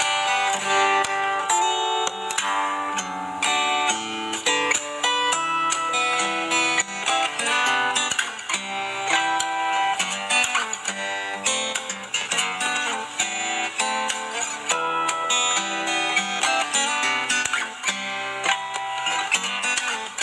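Guitar played fingerstyle: a busy run of plucked melody notes over moving bass notes.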